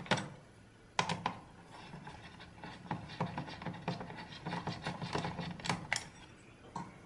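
Screwdriver turning in the screws of an Intel NUC mini PC's bottom cover, loosening them: the metal tip scrapes and rubs in the screw heads, with a scatter of small clicks and a sharper click about a second in.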